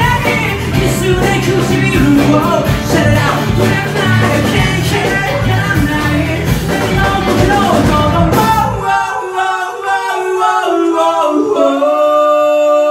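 Live rock band with a male lead singer. About eight and a half seconds in, the band stops on a cymbal-crash hit and the singer holds a long note alone, shifting pitch a couple of times.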